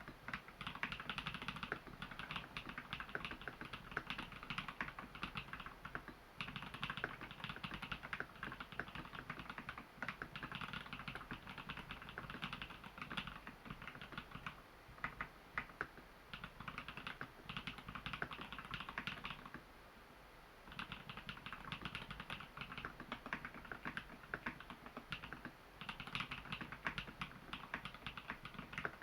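Typing on a custom mechanical keyboard with tactile Holy Panda switches, lubed with Krytox grease and filmed, in an XO v3 housing dampened with Thinsulate foam: a steady run of keystrokes with a few short pauses.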